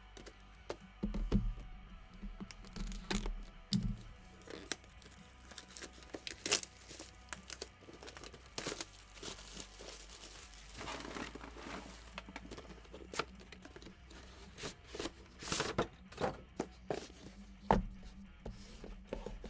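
Wrapping on trading-card boxes being torn and crinkled by hand. Irregular sharp snaps and taps come as the boxes and cards are handled, with a longer tearing rustle about eleven seconds in.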